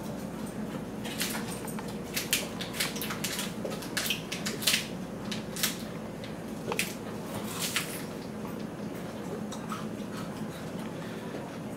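Irregular wet clicks and smacks from someone sucking on a frozen ice pop in its plastic tube, over a faint steady hum.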